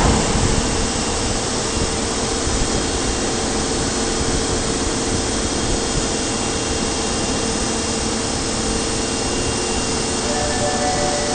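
Osaka Municipal Subway Series 22 train running after pulling out, a steady rushing noise with a faint held tone; near the end fresh higher tones join in.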